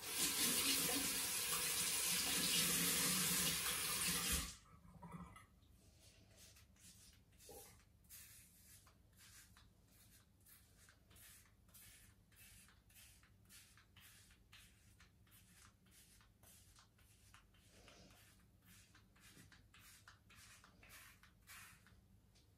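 Tap running into a sink for about four seconds, then shut off abruptly. After that, a long series of short, faint scraping strokes: a handheld razor shaving four weeks of stubble off a lathered scalp.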